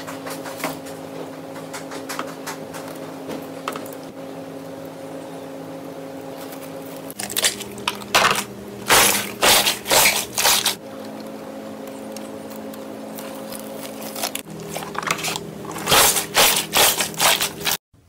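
Slime being squished and pressed by hand, giving two spells of rapid crackling, popping clicks.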